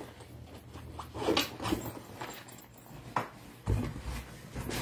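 Things being handled and rummaged in a cardboard shipping box: soft rustles and knocks, a sharp click a little past three seconds, then a low thump.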